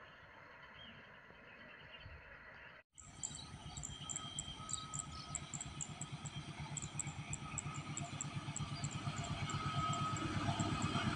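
Quiet outdoor background, then, after a cut about three seconds in, a diesel locomotive approaching: its engine gives a rapid, regular low throb that grows steadily louder. Repeated short high chirps sound above it.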